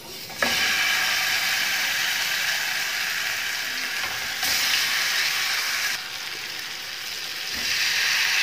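Marinated chicken leg pieces sizzling as they are laid into hot ghee on a flat tawa for shallow frying. The sizzle starts suddenly about half a second in and gets louder again about four seconds in and near the end as more pieces go into the pan.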